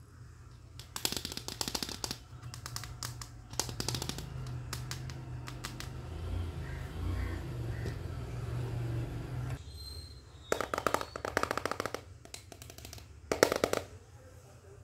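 Plastic toy kitchen pieces being handled, with several short bursts of rapid rattling clicks.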